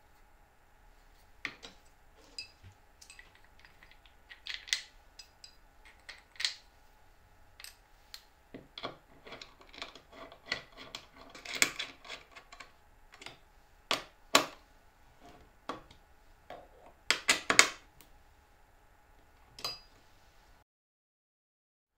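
Small clicks, taps and knocks as a plastic handle is set on a plywood drill-stand carriage and its bolts are tightened with an Allen key, with a quick flurry of clicks near the end. The sound cuts off suddenly shortly before the end.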